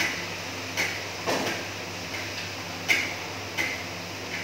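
Hot oil frying fish in a large wok over a gas burner: irregular sharp pops and spits over a steady hiss.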